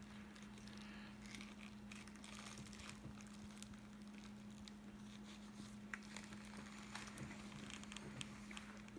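Faint sounds of a person biting into and chewing a burger, with light crinkling of its foil wrapper and a few small clicks in the second half, over a steady low hum.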